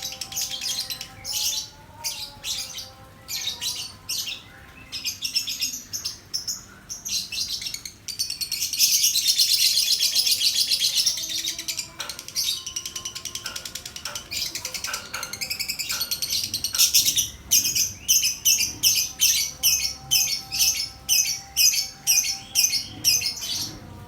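Lovebird chattering in quick high-pitched bursts, with one long unbroken trill of several seconds near the middle, the kind of extended chatter (ngekek) that lovebird fanciers value.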